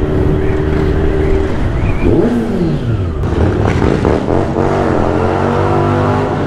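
Kawasaki Z900's inline-four engine through its Mivv Suono Black muffler while riding: the note holds steady for a second or so, drops in pitch as the throttle is rolled off about two seconds in, then climbs again as the bike picks up speed, over a steady rush of wind and road noise.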